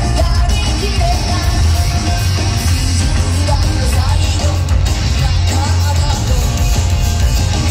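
Live J-pop music played loud over a concert PA, with heavy, steady bass and a woman's lead vocal sung into a microphone, heard from the audience.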